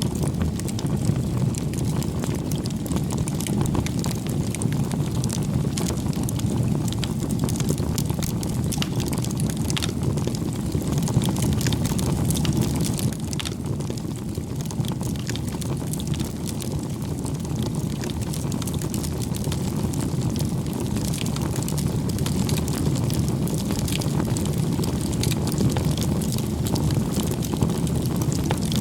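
Bonfire burning: a steady low rush of flames with frequent sharp crackles and pops of burning wood scattered throughout.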